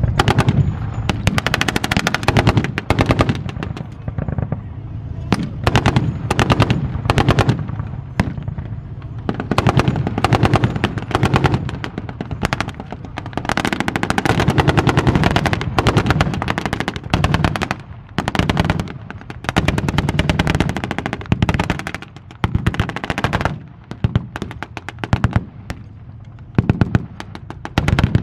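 Blank gunfire in a WWII battle reenactment: rapid machine-gun bursts and single rifle shots crack again and again. Underneath runs the low, steady rumble of tank and armoured-vehicle engines.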